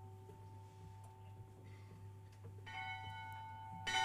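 A bell rung by hand: an earlier ring is still fading, then the bell is struck twice, about three seconds in and again a second later, the second strike louder. Each strike rings on.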